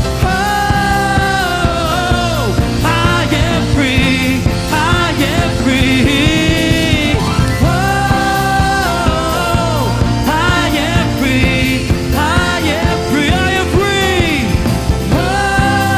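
Live worship band playing a rock-style song, with steady bass and drums under a sliding, bending lead melody line.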